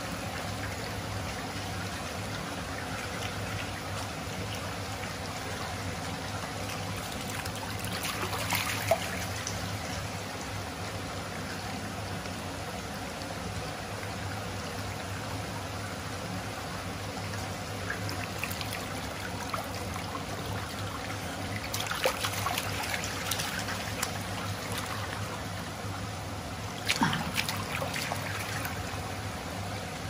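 Shallow stream water flowing steadily through a concrete culvert, with a few louder splashes about a third of the way in and twice more in the last third.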